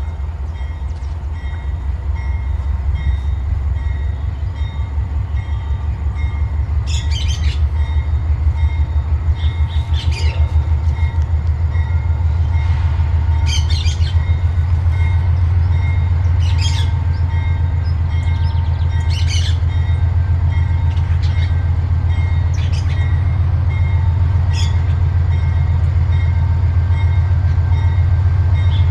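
Diesel locomotive engine rumbling with a steady throb, growing louder as it comes closer. Short harsh bird squawks cut in every two or three seconds.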